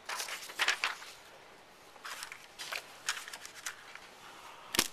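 Sheets of drawing paper and drafting rulers being handled on a drawing board: several short rustling, sliding scrapes, then one sharp click near the end.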